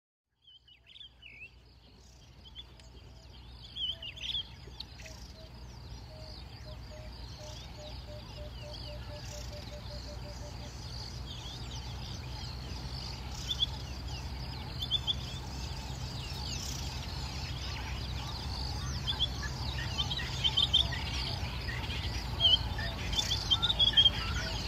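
Outdoor bush ambience fading up from silence: wild birds chirping and calling with short, high notes, louder toward the end. For several seconds early on there is a series of evenly spaced lower notes at about three a second. A steady low hum runs underneath.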